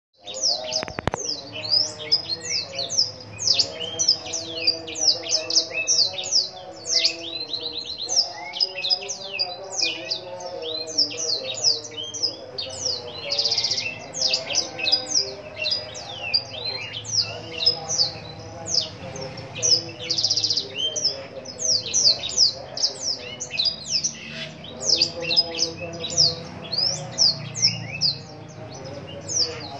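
A blackthroat (black-throated canary) singing continuously in rapid, high, sharp chirping phrases, with a brief buzzy trill about halfway through and another about two-thirds of the way in.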